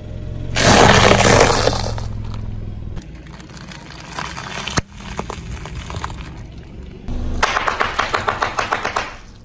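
A car tyre crushing things one after another. About half a second in there is a loud crunch of stacked sesame-topped pastries, then quieter crackling of a packaged snack in its plastic wrapper. Near the end comes a rapid run of sharp pops as a row of small plastic drink bottles bursts and sprays.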